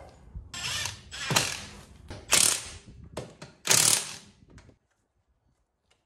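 Cordless Makita impact wrench run in several short, gentle bursts, snugging a wheel's lug bolts onto the hub. The bursts stop a little before five seconds in.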